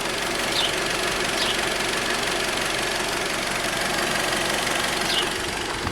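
SEAT Leon Cupra 290's 2.0-litre turbocharged inline-four idling steadily at its lowest revs in comfort mode.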